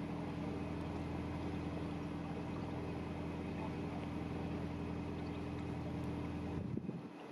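A narrowboat's engine running steadily as the boat cruises, a constant low drone with a steady hum above it. Near the end the low rumble drops away abruptly.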